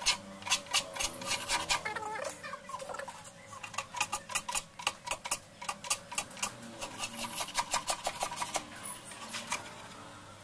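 Small handmade wooden hand plane rasping along an edge in quick repeated strokes, about three a second. The strokes ease off around three seconds in and stop near the end.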